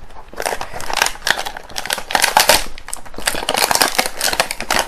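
Plastic blister packaging and its cardboard backing being torn and peeled open by hand: a dense run of quick, irregular crackles, loudest about halfway through.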